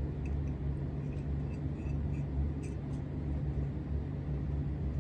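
A steady low hum runs under faint small scrapes and ticks of hands and fingers working exhaust sealant onto the pipe.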